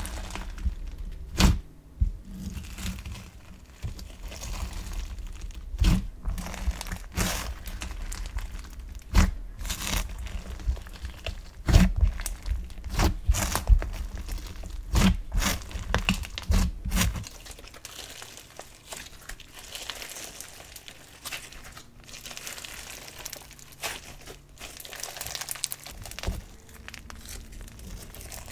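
Foam-bead slime (floam) being squished and kneaded by hand: a dense run of crackles and sticky pops from the beads and slime, with heavier presses and dull thumps through the first two-thirds, then lighter crackling.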